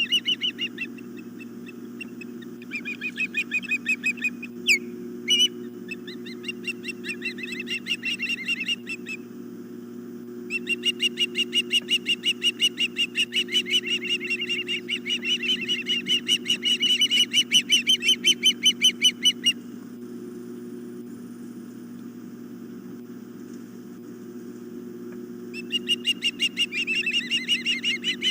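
Ospreys at the nest calling: rapid runs of high, piping chirps at about four or five a second, in four bouts, the longest lasting about nine seconds. A steady low hum runs underneath.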